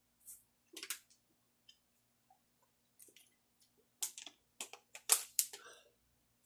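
Plastic water bottle being handled: scattered crinkles and clicks of the bottle and its cap, thickest in a quick cluster about four to five and a half seconds in.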